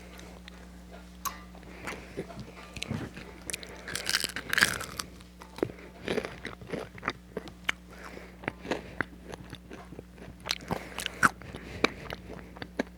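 Someone biting into and chewing crispy fries, a quick string of crunches and crackles, thickest about four seconds in.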